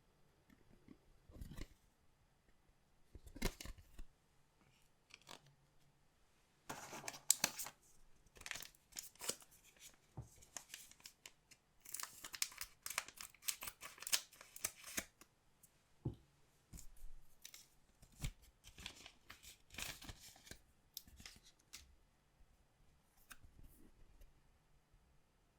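Foil wrappers of collectible card packs being torn open and handled, in irregular bursts of crackly tearing and clicks with short pauses between.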